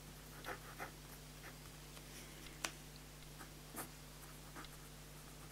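Pen writing on a paper legal pad: short scratchy strokes as words are written out, with a couple of sharper ticks of the pen tip about halfway through.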